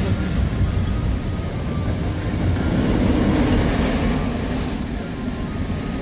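Velocicoaster roller coaster train running on its steel track during a test run, a rumble that swells about halfway through and then eases off.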